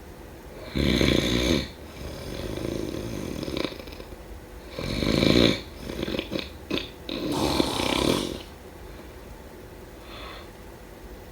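A person snoring: three loud snores about a second long, a softer drawn-out breath after the first, and a quick run of short snorts between the second and third.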